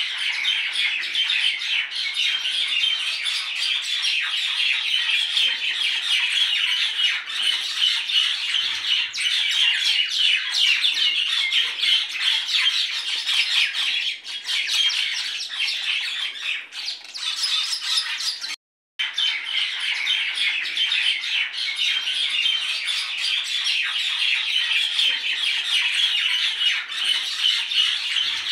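Many small birds chattering and squawking in a dense, continuous chorus of rapid chirps. The sound drops out completely for a moment about 19 seconds in, then resumes.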